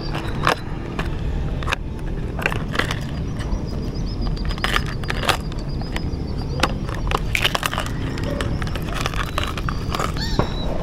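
Close handling noises from a caught fish being unhooked with forceps: irregular clicks and scrapes over a steady low rumble, with a faint thin high tone through the middle.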